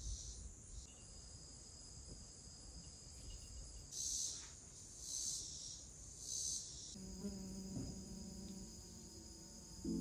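Insects calling in a steady high-pitched drone, with louder pulses at a slow rhythm about midway. Soft held musical tones come in about seven seconds in.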